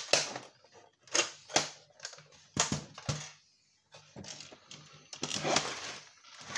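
Plastic casing of a Sky HD box clicking and snapping as its side catches are worked loose, a handful of sharp clicks, then a longer scraping of plastic on plastic in the second half.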